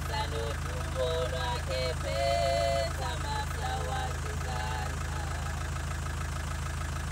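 A vehicle engine idling with a steady low hum, while women's voices sing a welcome over it, with several held notes in the first three seconds.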